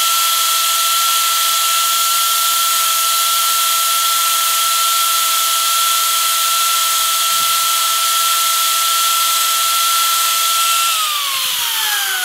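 Arbortech Mini Pro power-carving tool's motor running at a steady high-pitched whine with a hissy edge, then switched off near the end, its whine falling in pitch as the cutter spins down.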